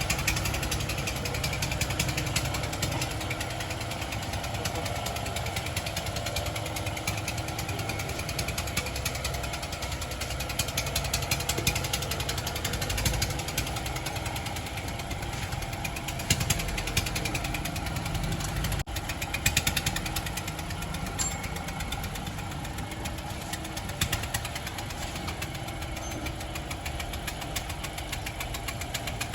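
Honda Civic's turbocharged petrol engine running at idle with a fast, even ticking knock over the engine hum. This is the abnormal noise the nearly new car (about 4000 km) has started making.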